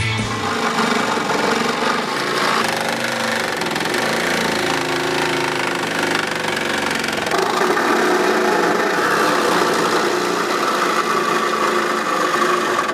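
Black+Decker cordless reciprocating saw cutting through the HMMWV's aluminium body panel, its blade chattering steadily in the metal. The pitch of the cut shifts a few times as the load changes.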